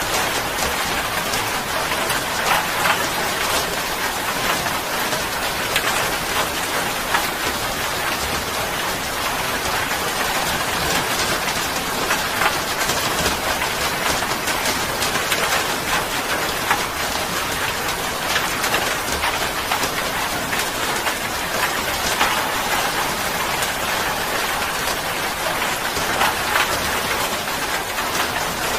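Steady rain: a dense, even hiss with many individual drops striking throughout.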